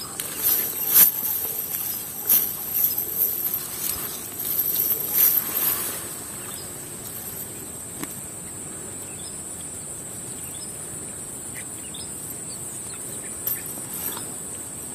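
A steady, high-pitched chorus of insects droning. During the first six seconds there are irregular rustles and knocks close by.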